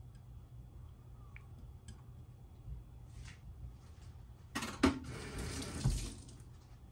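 Water running briefly into a sink from a kitchen tap, starting with a knock about four and a half seconds in and stopping after about a second and a half.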